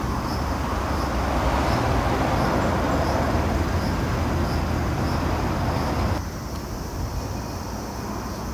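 Road traffic noise: a steady rush with a low rumble from vehicles going by, dropping to a quieter level about six seconds in.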